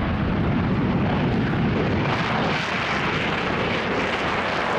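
B-1B Lancer bomber taking off, its four afterburning turbofan engines at full power giving a loud, steady jet roar as it climbs away.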